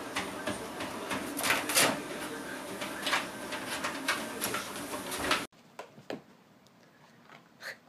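Motorized treadmill running: a steady mechanical hum and belt noise with light taps from the dog's paws. It cuts off suddenly about five and a half seconds in, leaving a quiet room with a few faint clicks.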